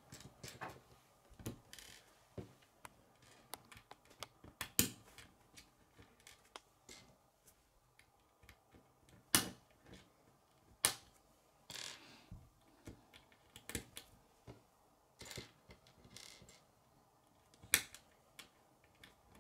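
K'nex plastic connectors and rods being snapped together and handled on a wooden tabletop: irregular sharp plastic clicks every second or two, with a few short rustles.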